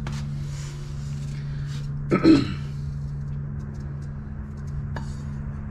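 A person clearing their throat once, about two seconds in, over a steady low hum; a faint click near the end.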